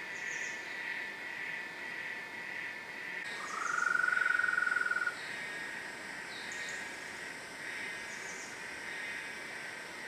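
Forest ambience: a steady chorus of insects, with one loud, even-pitched trill lasting about two seconds from about three seconds in, and several short, high chirps scattered through.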